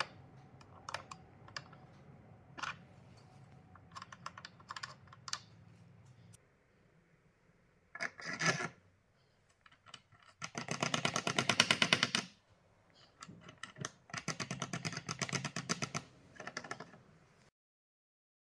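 Small metal hardware being tightened on a bearing fixture: scattered clicks and taps of a wrench and nuts, then two long runs of rapid, even clicking about halfway through and again later, the first the loudest, ending in silence.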